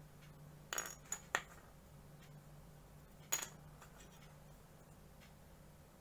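Hard plastic SD Gundam model-kit parts clicking and knocking as they are handled and fitted together: three sharp clicks in quick succession about a second in, and one more a little after three seconds, over a faint steady hum.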